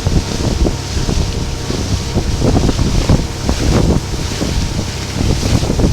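Motorboat under way: wind buffeting the microphone in irregular gusts over the steady rush of water along the hull.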